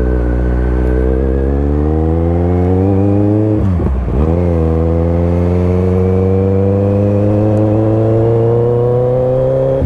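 Motorcycle engine under acceleration. The revs climb steadily, dip briefly at a gear change about four seconds in, then climb slowly again.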